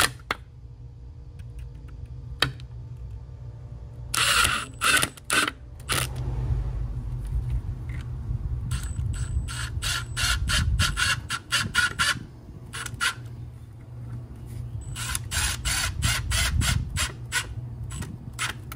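Hand screwdriver driving screws through plastic conduit straps into a concrete wall: three bursts of quick clicks, about five or six a second, over a steady low rumble.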